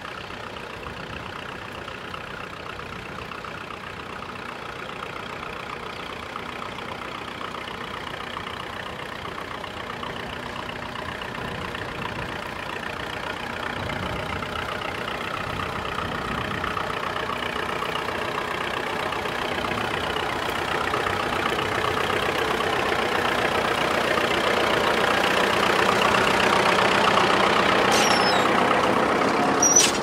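Vintage Fordson tractor's four-cylinder engine running as it pulls a plough, growing steadily louder as it comes closer. A couple of sharp clicks near the end.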